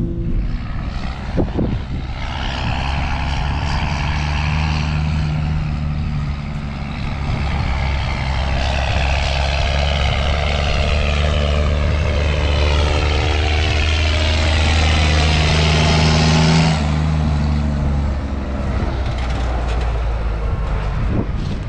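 Mini excavator's diesel engine running under working load, a steady low drone with a higher, shifting whine and clatter over it that eases off about seventeen seconds in.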